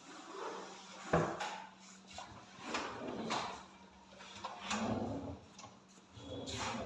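Modular kitchen drawers sliding open and shut on their runners several times, with a sharp knock about a second in.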